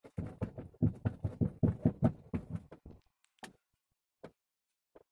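A quick, irregular run of knocks and rubbing against the wooden boat as a fishing handline is hauled in hand over hand, dying away after about three seconds to a few faint clicks.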